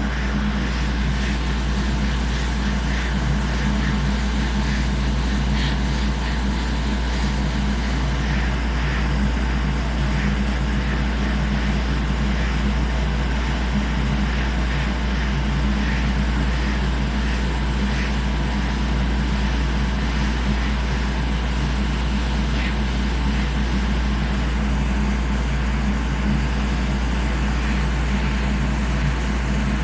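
Steady whir of a hot-air rework station's blower as a PS5 HDMI port is desoldered, over a low electrical hum, with faint light ticks now and then.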